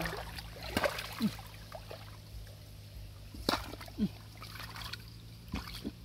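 Shallow muddy water sloshing and splashing around hands groping underwater, with a few sharp splashes, the loudest near the middle.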